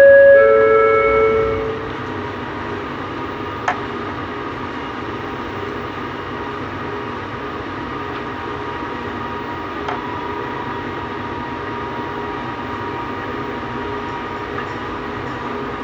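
Bombardier Innovia Metro 300 train sounding a loud two-note horn, a higher note and then a longer lower one, over the first two seconds. After that the train runs steadily with a humming tone, and two sharp knocks come through about 4 and 10 seconds in.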